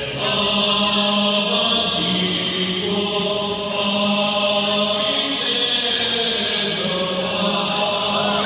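Music of long, held chant-like voices, the notes changing pitch every second or two.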